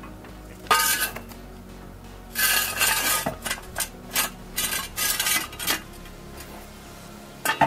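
Metal jack stand being set in place under a car: several short metallic clanks and rattles, about a second in and again in a cluster between two and six seconds.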